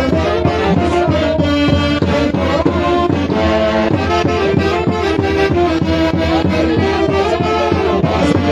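A Peruvian orquesta playing Santiago festival music: dense melody lines over a steady, regular beat.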